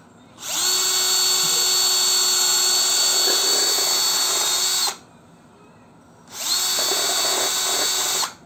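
Bosch Professional cordless drill running in two steady bursts, a long one of about four and a half seconds and a shorter one of about two seconds, its bit boring through the base of a terracotta clay pot.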